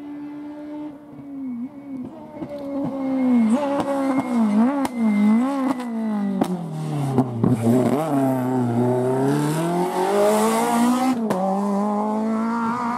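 A Renault Clio rally car's engine coming closer and passing, its revs rising and falling several times through a run of gear changes, with a few sharp cracks. The revs drop low as the car slows for the bend, then climb again as it accelerates past. A hiss from the tyres on the wet road comes in as the car passes close.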